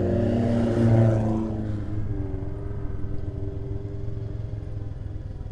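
Motorcycle engine running at low road speed, with an oncoming car passing close in the first second or two; after about two seconds the sound drops and steadies to an even engine note.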